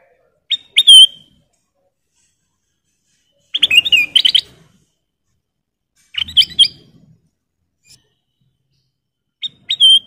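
Ruby-throated bulbul (kutilang emas) singing four short phrases of clear whistled notes a few seconds apart. The first and last phrases end in a short held whistle.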